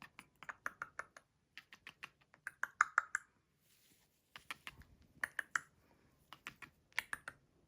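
Sharp clicks in about four quick runs, from the blue-and-gold macaw's beak.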